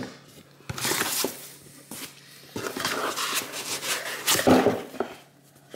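Cardboard graphics-card box and its foam insert being handled and pulled apart: irregular rustling, rubbing and scraping of foam on cardboard, loudest about four and a half seconds in.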